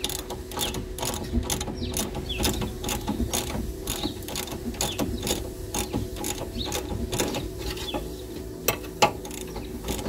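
Ratchet spanner clicking in a steady run of sharp clicks, about three a second, as it winds a loosened 24 mm nut off the upper control arm bolt.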